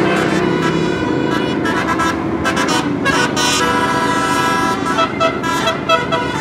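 Indonesian bus's multi-tone telolet horn playing a tune of changing notes, ending in a run of quick short toots, with the bus's engine running underneath at first.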